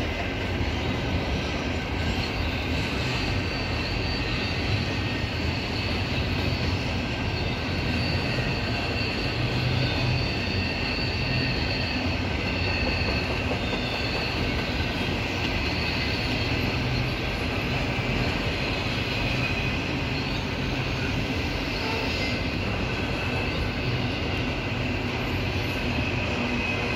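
Double-stack container well cars rolling past on the rails: a steady rumble of wheels on track, with a faint high wheel squeal running over it.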